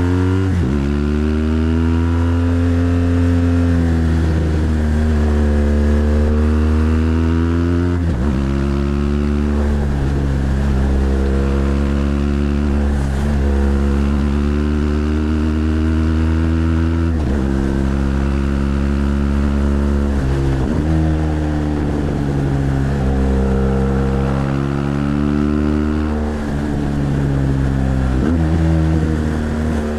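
BMW GS Adventure LC's liquid-cooled boxer twin engine pulling uphill, its pitch rising and sagging as the throttle is rolled on and off, with brief dips and restarts every few seconds at gear changes and bends.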